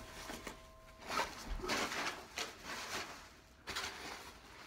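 Soft handling scuffs and rustles, several short noisy bursts, with a faint steady tone that stops about a second in.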